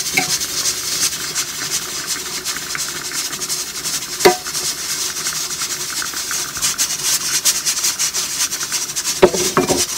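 Pressure cooker venting steam with a steady, loud hiss. A metal ladle clinks against the stainless pot about four seconds in, and again a couple of times near the end.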